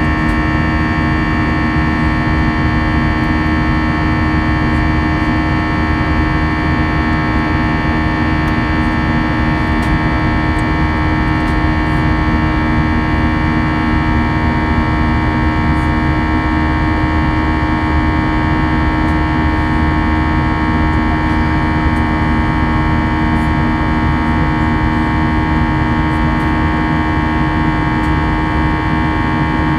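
Steady in-flight cabin noise of an Airbus A320-200: a constant rush of engine and airflow noise carrying a set of steady engine tones, heard from inside the passenger cabin.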